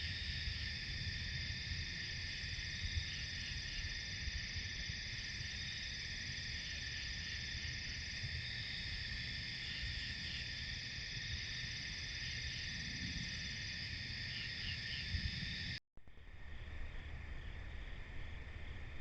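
Steady late-summer chorus of crickets and other night insects, several layers of continuous high trilling, with a low rumble of background noise beneath; it breaks off for a moment near the end and resumes much the same.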